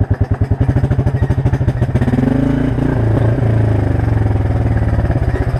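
Quad bike engine running close by under load with a rapid, even pulsing beat. It revs up briefly about two seconds in and settles back.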